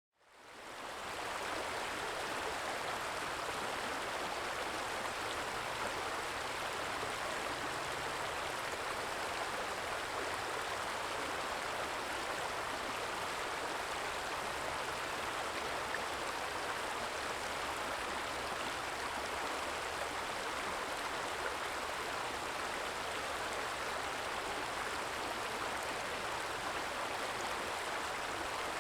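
A small stream trickling and flowing steadily, fading in over the first second.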